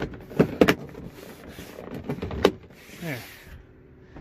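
A plastic trim piece being pushed and snapped into place in a car's trunk: a series of sharp plastic clicks and knocks, with a short falling creak about three seconds in.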